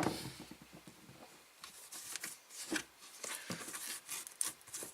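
Small items being rummaged through and handled: irregular rustling, scraping and light clicks.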